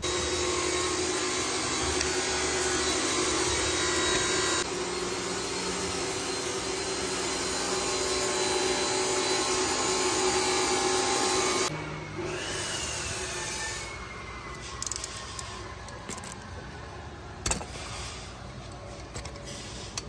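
Failed A/C compressor pulley bearing on a VW Golf 6 GTI making a rough, steady grinding rub as the pulley turns. After about twelve seconds it gives way to a quieter falling whine and a few sharp clicks.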